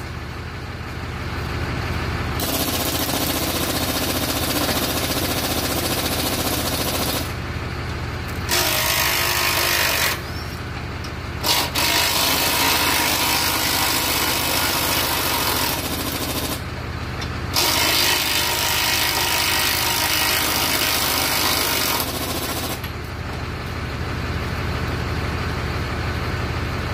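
A hand power tool runs in four long bursts of several seconds each, a harsh rattling noise, over the steady low idle of a John Deere 544K wheel loader's diesel engine.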